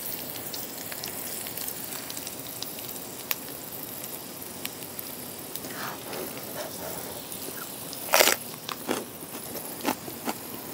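Pork belly sizzling and crackling on a grill pan over a portable butane stove, a steady frying hiss with small pops. About eight seconds in come a few sharp, louder crunches.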